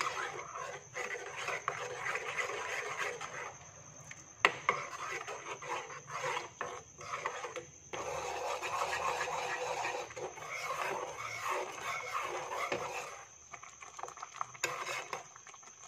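Metal spoon stirring and scraping around a saucepan of passion fruit juice and sugar syrup boiling hard on a high flame, the syrup bubbling as it reduces and thickens. The spoon knocks sharply against the pan about four seconds in and again near the end.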